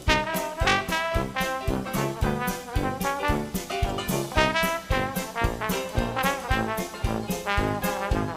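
Background music: upbeat brass-led jazz with trombone and trumpet over a steady beat.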